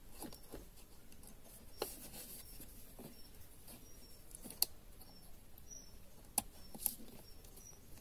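Plastic clicks and light knocks of a car's lower dashboard trim panel being handled while a wiring connector is plugged in behind it, with a few sharper clicks spread through.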